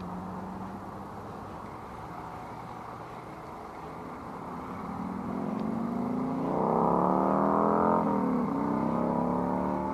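A motorboat engine passing by: its pitch and loudness climb over several seconds, the pitch drops sharply about eight seconds in as it goes past, and it fades.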